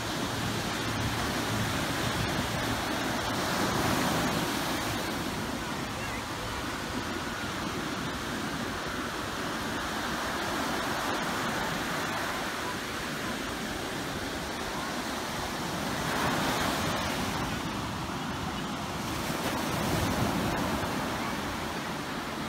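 Pacific Ocean surf washing onto a sandy beach: a steady rush of water that swells about three times as waves break.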